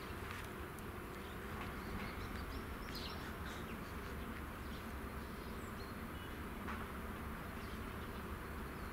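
Steady outdoor background noise, a low rumble and hiss with no clear rhythm, with a few faint, short high chirps.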